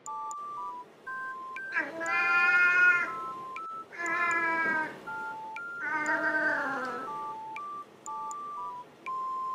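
A Siamese-mix cat left home alone meowing three times in long, loud calls, the last one sliding down in pitch. A background music track of simple beeping notes plays throughout.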